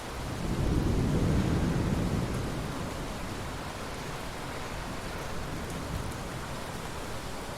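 Steady rain with a low roll of thunder that swells about half a second in, peaks over the next second and a half, and dies away by about three seconds in.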